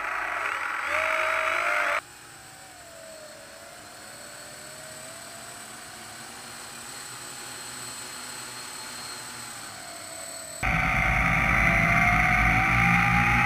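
Electric motors and propellers of a radio-controlled multirotor running on the water, a steady whine that wavers in pitch with the throttle. It is loud and close for about two seconds, then cuts to a faint, distant whine, and is loud again near the end with the whine slowly rising.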